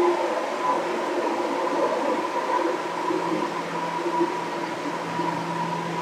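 Running noise of a JR East 205-series electric train heard from inside the car: a steady rumble of wheels on rail with a steady whine. A lower hum joins about three seconds in.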